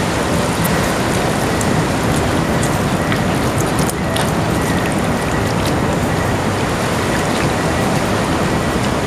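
Steady rushing noise throughout, with faint light clicks from hands mixing marinated pork and garlic in a stainless steel bowl.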